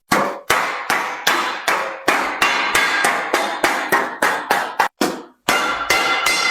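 Hand hammer beating sheet copper at a steady pace of about three strikes a second, each blow ringing with a metallic tone. The hammering breaks off briefly about five seconds in, then resumes.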